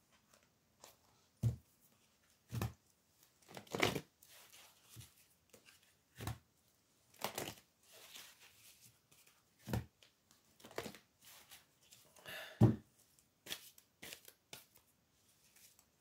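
A deck of oracle cards being shuffled by hand in irregular handfuls, with crisp riffling strokes and several sharp taps. The loudest tap comes about three quarters of the way through.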